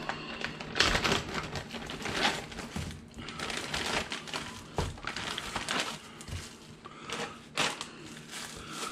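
Kitchen handling noises: irregular clicks, light knocks and rustling as things are moved and handled on a counter.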